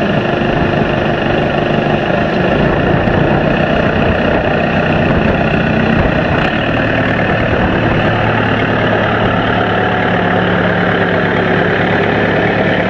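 An engine running steadily, its low hum holding even throughout.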